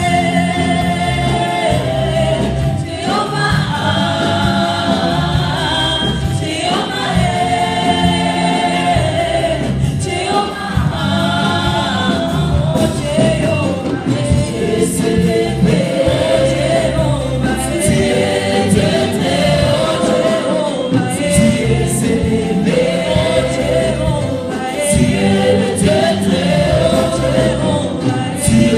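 Gospel choir of women and men singing through microphones, held notes gliding in pitch over a sustained low accompaniment.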